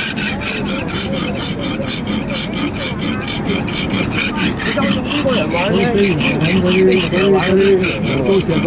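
Knife blade being sharpened by hand on a whetstone: a steady rasping scrape repeated in a fast, even rhythm of several strokes a second as the blade is pushed back and forth across the stone.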